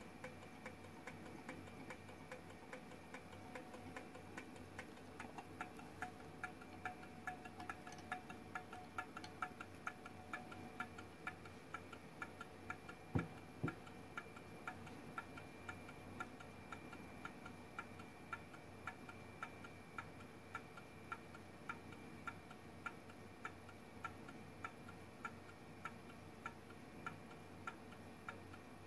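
Small gamma Stirling engine running, its piston and crank mechanism ticking steadily about twice a second. About 13 seconds in come two louder knocks as the engine is taken off the hot-water mug and set down on the desk.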